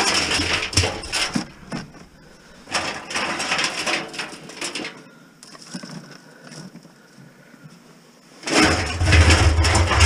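Tangled scrap insulated wire rustling and clattering in bursts as handfuls are lifted from a plastic crate and dropped into a plastic barrel. Near the end a loud low rumble joins in.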